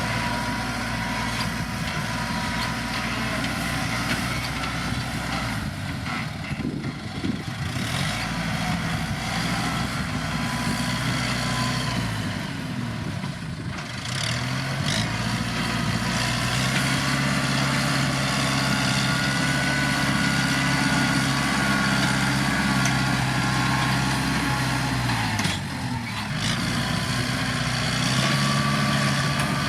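Kubota M7040 tractor's four-cylinder diesel engine running steadily while working dirt, its revs sagging and recovering three times.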